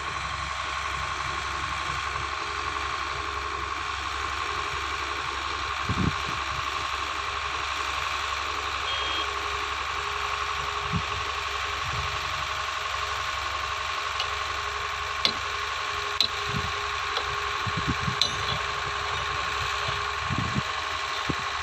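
A heavy construction machine's engine idling steadily, with a few brief low thumps, more of them in the second half.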